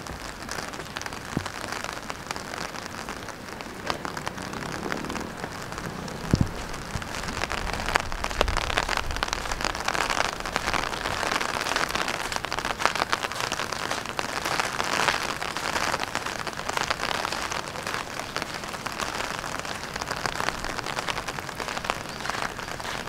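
Steady rain falling on wet paving: a dense hiss of small drop ticks, with a couple of louder taps about 1.5 and 6.5 seconds in.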